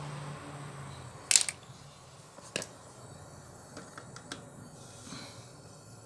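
Sharp metallic clicks and clacks of hand tools being handled, the loudest about a second in, another a second later, then a few lighter ticks.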